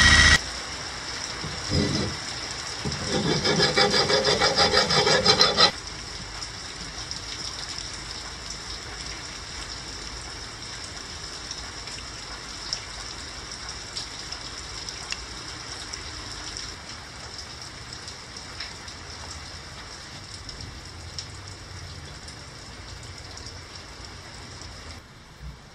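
An electric drill stops just after the start, followed about two seconds in by a thump and about three seconds of loud, rhythmic grating. After that, a long quiet stretch of light rubbing and small clicks as a steel knife blade and tools are handled on a workbench.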